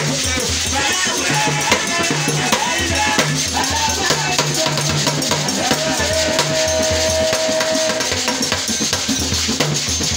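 Live worship music: low hand-drum strokes and a shekere, a beaded gourd rattle, shaken in rhythm, under a singing voice that holds one long note about two-thirds of the way through.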